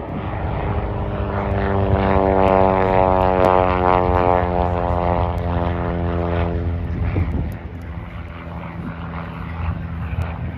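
Replica Fokker D.VII biplane passing overhead, its inverted Ranger 6-440 six-cylinder engine and propeller droning. The drone grows louder over the first few seconds, peaks about three seconds in, and fades away after about seven seconds.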